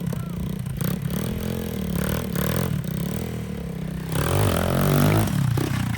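Small scooter engine revving up and down as it is ridden, growing louder about four seconds in.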